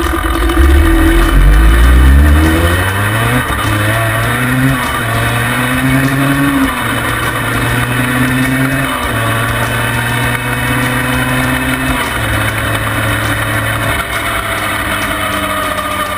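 Yamaha Banshee quad's big-bore 421 cc two-stroke twin revving up as it pulls away, then running on through several gear changes, the engine pitch dropping a step at each shift. Wind and road noise sound on the footpeg-mounted microphone throughout.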